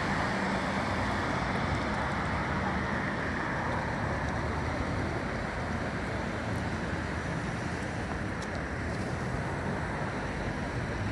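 Steady road traffic noise from passing cars on a busy street.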